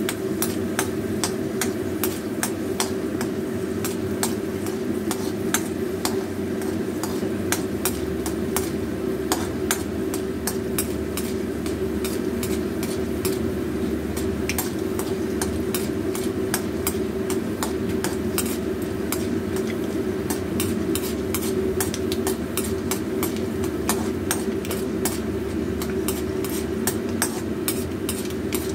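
Chana dal and peanuts frying in hot oil in an iron kadai, crackling with many small irregular pops, while a steel ladle stirs and scrapes against the pan. A steady hum runs underneath.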